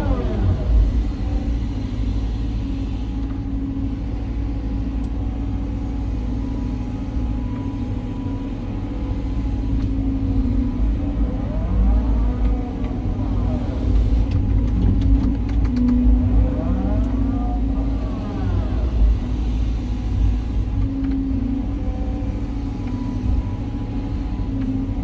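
Caterpillar 323 hydraulic excavator running at work digging a ditch: a steady diesel engine hum with the pitch of the engine and hydraulics rising and falling twice as it takes and eases off load, and a few light clicks in the middle.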